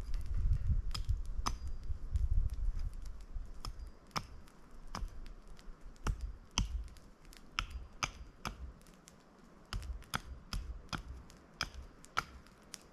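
Knife work on a wooden stick: a sharp woody click with each cut, about one or two a second, with a low rumble in the first few seconds.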